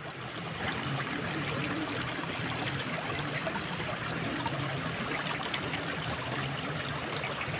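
Water running steadily in a ditch: a continuous trickling rush with no let-up.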